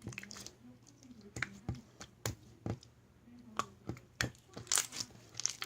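Slime being squeezed and pressed by hand, making irregular sticky clicks and pops, about one or two a second.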